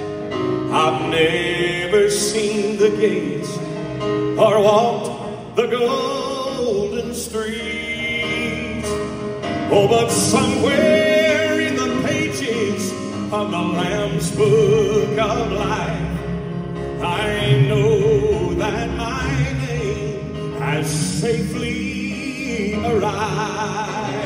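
Southern gospel vocal group performing live. A male lead voice sings with vibrato over instrumental accompaniment, heard through the hall's sound system.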